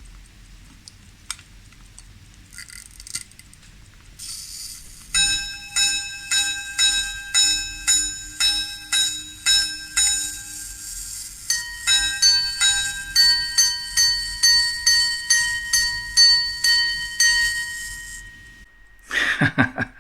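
A 19th-century 18K gold Henry Capt minute repeater pocket watch striking the time on its gongs. After a few light clicks and a brief whirr as the repeater slide is worked, a lower gong strikes about ten times for the hours, then paired ding-dong strikes on both gongs for the quarters, then a higher gong strikes a run for the minutes. Together they sound out 10:39.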